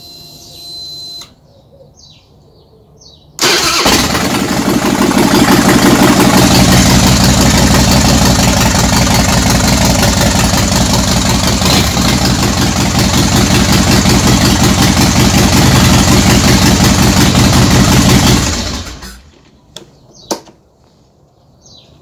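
2008 Harley-Davidson Softail Deuce's Twin Cam V-twin, through Vance & Hines pipes, cranked and catching a few seconds in, then idling loudly with a steady lumpy pulse for about fifteen seconds before being shut off and dying away. The start is the check that the newly fitted ignition switch works.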